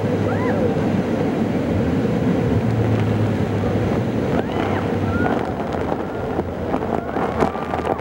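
Tour speedboat running at speed on a river: a steady engine hum under rushing water and wind buffeting the microphone. Passengers' voices call out over it, more in the second half.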